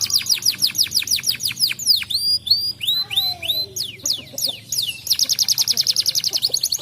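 Domestic canary singing: quick series of high, downward-sliding whistled notes in changing phrases, breaking into a faster, even trill about five seconds in.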